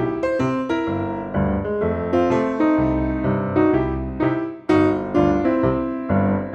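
Background music led by piano or electric piano, with a steady run of struck notes and chords.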